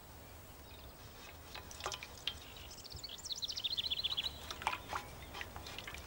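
Water splashing and dripping in a metal basin, with scattered light splashes and drips. About three seconds in, a bird gives a rapid trill of short high notes for just over a second, starting high and settling slightly lower.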